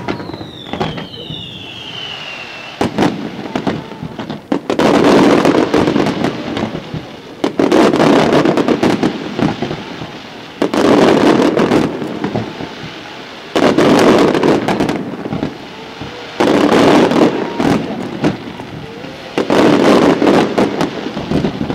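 Fireworks display: falling whistles in the first few seconds, then volleys of aerial shell bursts with crackle, coming about every three seconds and each lasting a second or two.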